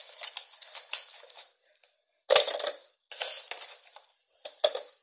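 Whole peeled onions being put into the plastic bowl of a food processor: a series of irregular knocks and rustles, the loudest about halfway through, with no motor running.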